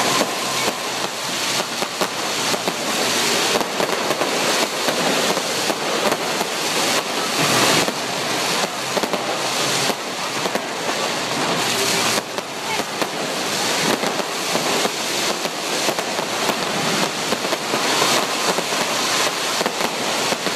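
Fireworks display: a dense, continuous barrage of bangs and crackling, with no pauses.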